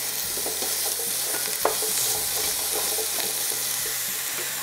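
Diced apples sizzling in melted caramelised sugar in a deep pan, stirred with a wooden spatula: a steady hiss with light scrapes and knocks of the spatula, and one sharper knock about one and a half seconds in.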